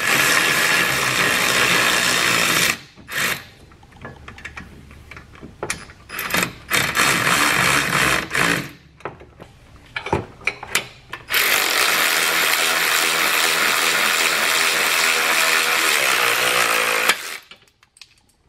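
Cordless power tools running bolts into a motor mount, their motors whining steadily. The first run lasts about three seconds, a few short bursts follow, and a long run of about six seconds starts near the middle and stops shortly before the end.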